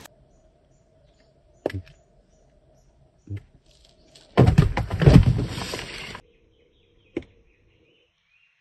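Cardboard box trap being handled by hand: a few single soft knocks, and about two seconds of loud rustling and scraping around the middle, over a faint steady tone in the background.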